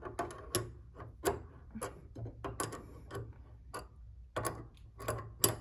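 Sharp metal clicks, irregular and about three a second, from a wrench and locking pliers working the lock nuts on a Steinway piano's threaded pedal rods as the nuts are tightened against each other.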